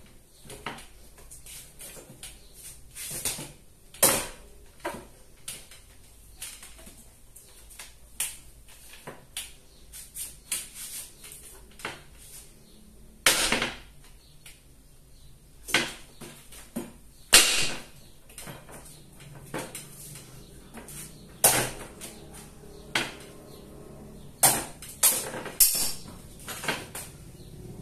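A large kitchen knife hacking into a whole pumpkin resting on a wooden chair seat: about twenty sharp knocks and cracks at uneven intervals as the blade is driven in and the pumpkin splits apart.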